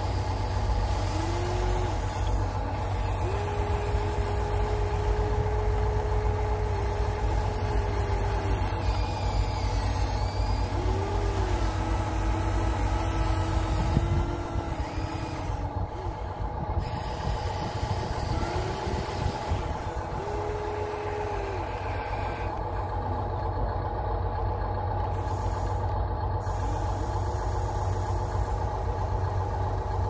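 Huina 1/14-scale RC excavators working: their small electric motors whine in short runs that rise to a steady pitch and fall away as the booms, arms and slewing move, over a steady low engine-like drone.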